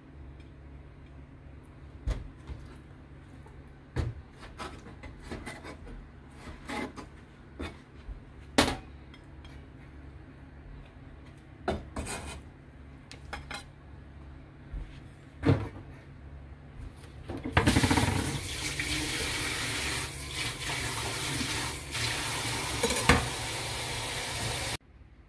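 Kitchen prep sounds: scattered knocks and clinks of utensils and dishes, then a water tap running into a sink for about seven seconds, shut off abruptly just before the end.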